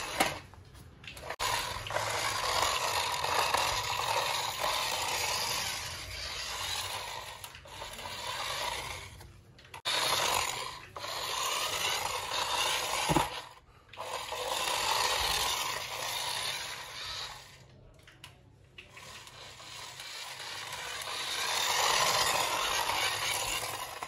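Toy remote-control car's small electric motor and gears whirring as it drives over a hard stone floor, its wheels scraping. It runs in stretches of a few seconds broken by short stops.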